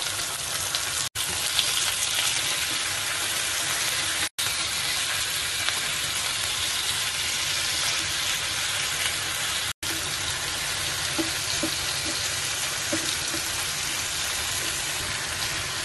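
Thin slices of marbled beef and fresh shiitake mushrooms sizzling in hot oil in a frying pan as the slices are laid in one by one: a steady, even sizzle, cut off for an instant three times.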